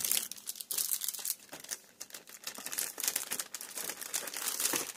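Plastic parts bags and blister packs crinkling and rustling as a hand rummages through them, a dense, irregular crackle.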